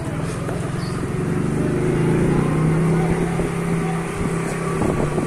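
Motor scooter engine running at low speed, a steady hum that gets louder about two seconds in.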